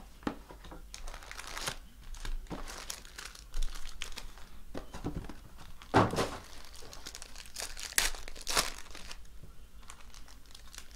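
Foil wrappers of Panini Prizm football card packs crinkling and tearing as the packs are handled and ripped open, in irregular crackles that are loudest about six and eight seconds in.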